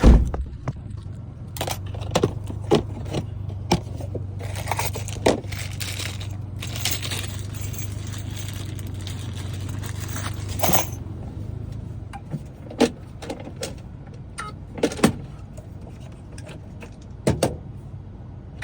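Metal keys clicking and jangling as they are handled, with a steady low hum that stops about twelve seconds in.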